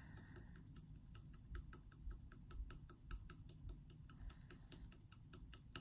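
Manual microblading pen with a two-row needle tapping lip pigment into the surface in quick, light, even clicks, about five or six a second. This is the characteristic sound of manual dot shading by hand, the same sound expected on a client's lips or brows.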